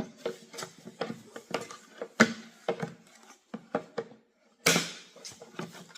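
Irregular clicks and knocks of a mannequin's detached back leg and its screw being handled and fitted to the body, with a brief scrape about three-quarters of the way through.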